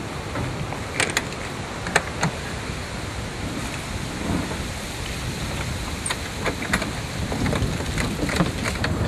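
Scattered clicks and knocks from handling a convertible top's latches and frame, over a steady background rush.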